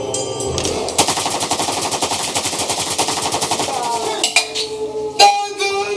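Long burst of rapid automatic gunfire, a machine-gun sound effect, lasting about three seconds, then two single loud bangs, over background music.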